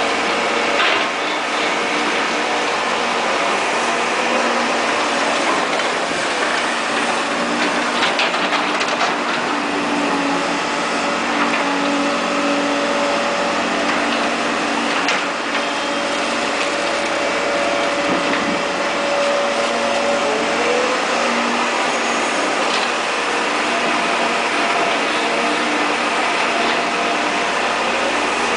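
Caterpillar E240B hydraulic excavator running steadily while digging, with a few short knocks.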